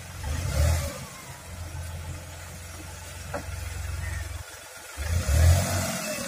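Engine of a mini truck laden with a mini excavator, running and revving as the truck drives forward, with louder surges about half a second in and again near the end.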